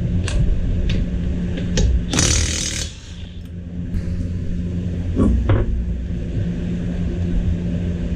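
A car's front wheel being taken off its hub: a few clinks and knocks of the lug nuts and tools, a short harsh burst of noise about two seconds in, and knocks as the wheel comes off around five seconds in, over a steady low hum.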